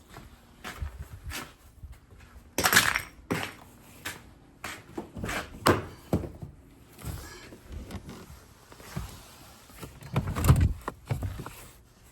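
Irregular thuds, knocks and rustling scrapes of things being handled and shifted inside a car's cabin, with a few louder bumps about three, six and ten seconds in.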